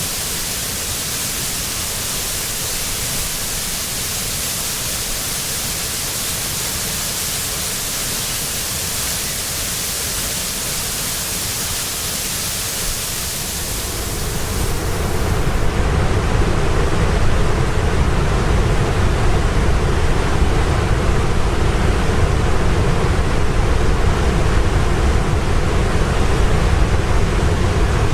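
Waterfall water crashing steadily, a dense hiss of falling water in a binaural recording. About 14 seconds in, the sound turns deeper and louder, with less hiss and more low rumble.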